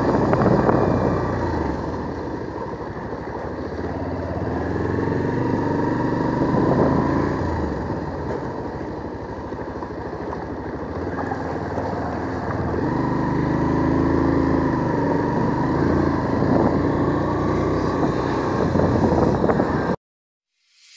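Motorcycle engine running as the bike is ridden slowly over a rough, broken unpaved road, its note swelling and easing as the rider opens and closes the throttle. It cuts off suddenly near the end.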